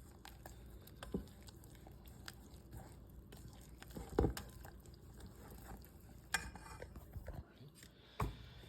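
A utensil stirring pancake batter of flour, milk and egg in a mixing bowl, clicking and scraping against the bowl, with a few louder knocks, the loudest about four seconds in.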